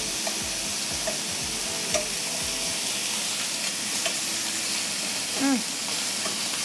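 Chicken thighs sizzling in a hot stainless steel frying pan, with a few sharp clicks of metal tongs on the pan as the pieces are turned. A short voice sound a little after five seconds.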